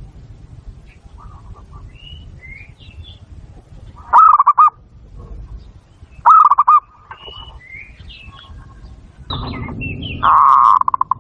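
Zebra doves cooing: three loud bursts of rapid, trilled cooing notes, the first two about half a second each at about four and six seconds in, a longer one near the end. Small birds chirp with short high notes in between.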